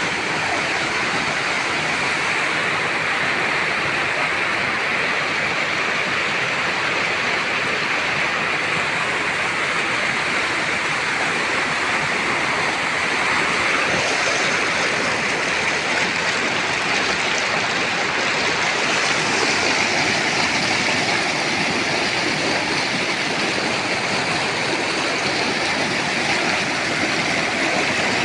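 Rushing water of a stream or small waterfall, a steady, unbroken wash of noise.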